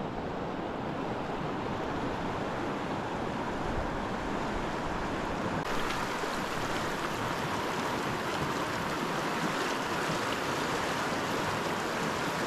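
River running fast and slightly high, a steady rushing of flowing water.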